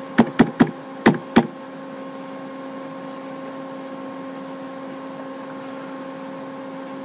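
A few short knocks in the first second and a half, then a steady hum with a faint whine in it.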